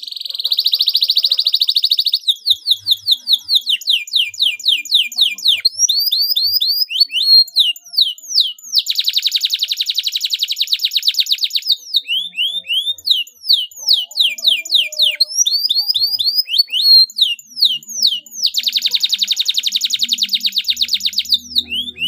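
Domestic canary singing a long high-pitched song: fast trilled rolls alternating with runs of quick downward-sweeping notes. It is a lure song (pancingan), the kind played to other canaries to set them singing.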